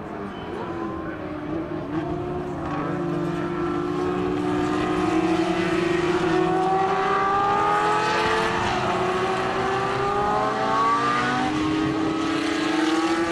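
Historic Formula One cars racing past at high revs, two engines heard together, their notes rising and dipping with throttle and gear changes and growing louder over the first few seconds.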